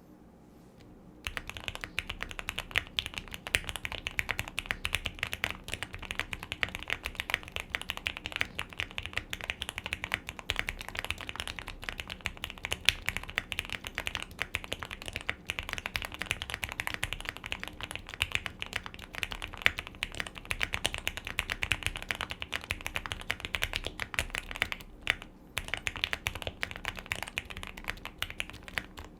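Continuous fast typing on a QK65 mechanical keyboard fitted with Gateron Oil King linear switches, a POM plate, full foam and PBT keycaps: a dense stream of keystroke clicks. It starts about a second in and breaks briefly near the end.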